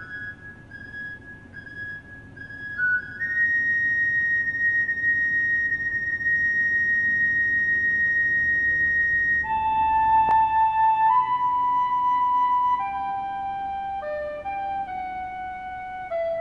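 Soprano recorder playing a slow melody: a few short notes, then a high note held for about six seconds, then a phrase of lower notes stepping downward.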